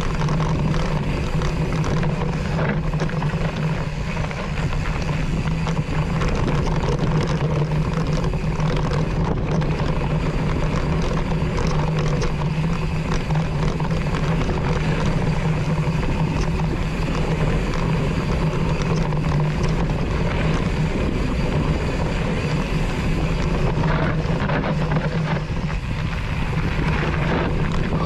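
Mountain bike rolling fast down a dirt singletrack, heard from a handlebar-mounted action camera: continuous tyre and frame rattle over the dirt with wind noise on the microphone and a steady low hum.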